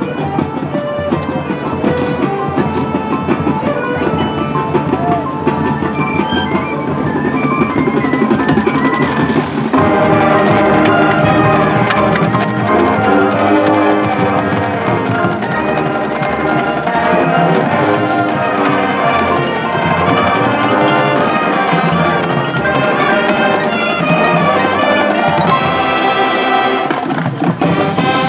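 Marching band playing, its drumline and percussion to the fore with melodic lines above, the full band coming in louder about ten seconds in.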